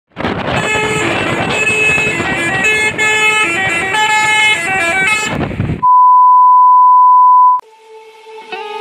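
A bus's telolet horn playing a quick melody of changing notes over traffic noise, stopping abruptly about six seconds in. A steady, loud beep follows for about two seconds, then soft music begins.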